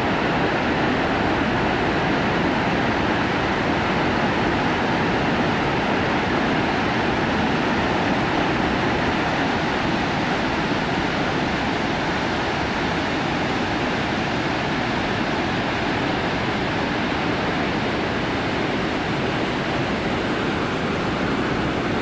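Krimml Waterfalls: a steep cascade of white water pouring over rock ledges, making a loud, steady rush of falling water.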